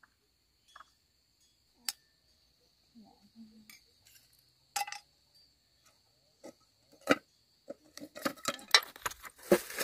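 Hard objects clinking and knocking against each other. First a few single strikes seconds apart, then a rapid clatter of many clinks in the last two seconds.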